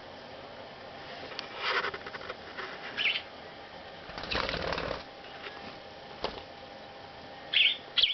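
Young budgerigars giving short high chirps, about three in all, with a burst of wing flapping about four seconds in and a shorter rustle of wings earlier.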